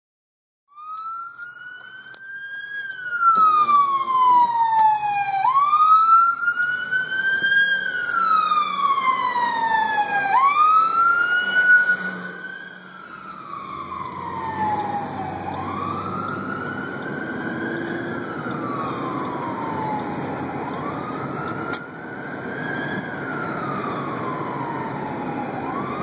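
Ambulance siren in a slow wail, rising and falling about every five seconds. It is loudest through the first dozen seconds, then drops off and runs on weaker as the ambulance pulls ahead.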